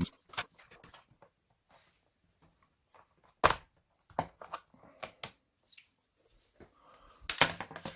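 Scattered plastic clicks and taps as the bottom cover of a Dell XPS 15 laptop is pried off and handled. One sharp click comes about three and a half seconds in, and there is a rapid clatter of handling near the end.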